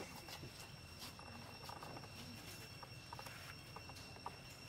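Faint outdoor ambience: a steady, high-pitched two-note insect drone with a few scattered faint chirps.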